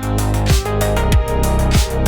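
Electronic music: three deep kick-drum hits, each dropping in pitch, about every 0.6 s under sustained bass and synth notes.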